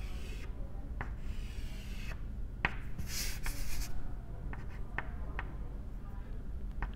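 Chalk on a blackboard: a few sharp taps and short scratchy strokes as lines are drawn, the longest stroke about three seconds in.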